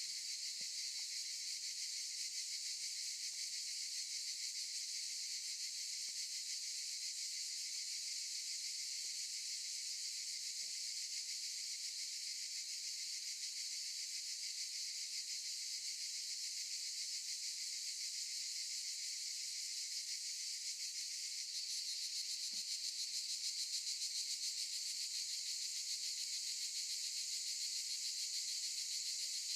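Cicadas singing in chorus: an unbroken, high-pitched buzz that gets slightly louder about two thirds of the way through.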